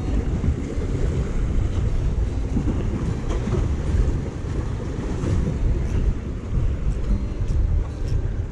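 Wind buffeting the microphone in a steady low rumble, over sea waves washing against concrete tetrapods, with a few faint clicks.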